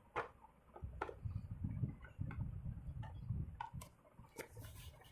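Irregular small clicks and light plastic knocks as a screwdriver pries at the seam of a Lloyd 24-inch LED TV's plastic back panel, lifting it off its clips, with low handling rumbles in between.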